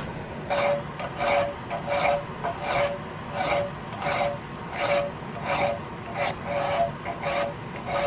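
Hand file scraping across a steel buckhorn rear sight part clamped in a vise, in about a dozen even strokes, roughly one every two-thirds of a second. Each stroke carries a faint ringing note. This is the sight being filed clean and bright before metal finishing.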